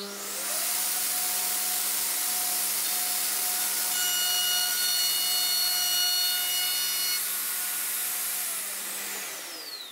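Festool OF 2200 plunge router starting up with a rising whine, then running steadily as it is pushed along a guide rail, cutting a dado in plywood. Near the end it is switched off and winds down with a falling whine, over a steady low hum.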